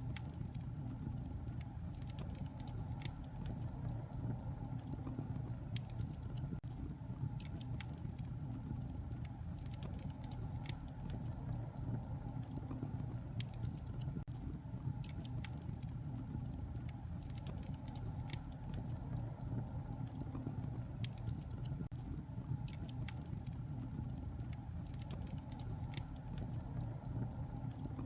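Wood fire burning in a fireplace: a steady low rumble of flames with many scattered sharp crackles and pops.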